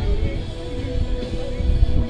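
Music playing, with a held note over a busy low end.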